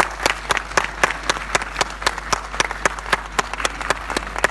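Audience applauding, with one person's claps close by and loud, about four a second, standing out over the spread-out clapping of the rest of the crowd.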